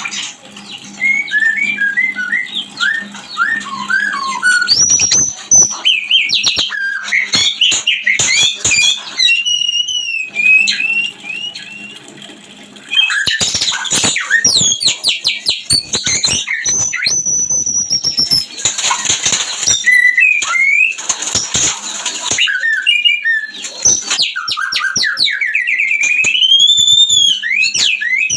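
White-rumped shama (murai batu) singing its mating song: a fast, varied run of clear whistles, trills and chattering notes, with a short quieter pause about halfway through. This is the call used to provoke caged shamas into singing.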